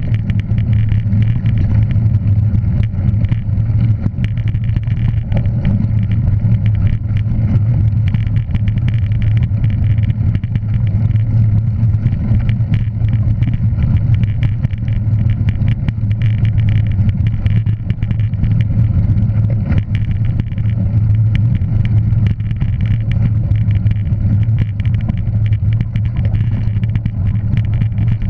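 A motor vehicle running steadily, heard as an even low drone with light rattling ticks over it.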